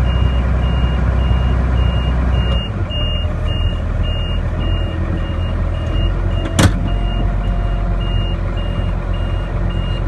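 Tractor engine running steadily while driving a Case IH round baler through its PTO shaft, with a short high electronic beep repeating about twice a second. The engine note shifts about a quarter of the way in, and a single sharp clank sounds about two-thirds of the way through.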